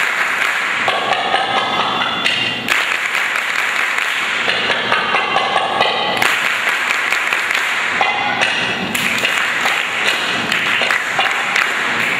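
Darbuka (Middle Eastern goblet drum) playing a solo of quick hand strokes, with a haze of hand clapping over it.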